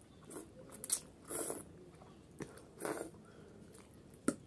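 Close-up eating sounds of Maggi masala noodles: a few short, wet slurps and chewing as strands are drawn up from a fork. A single sharp click comes near the end.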